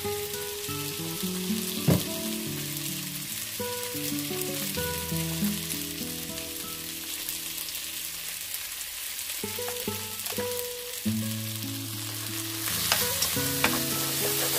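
Goat ribs sizzling steadily as they fry in oil in a pot, a little louder near the end, under background music.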